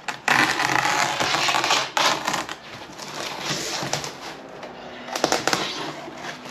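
Utility knife drawn through a panel along a marked line, making a long crackling scrape followed by shorter strokes and a few sharp clicks.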